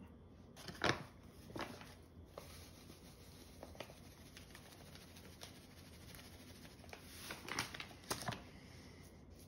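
Hands rubbing and patting curing salt into a raw slab of pork: faint, scattered pats and gritty rustles, with a short cluster of them near the end.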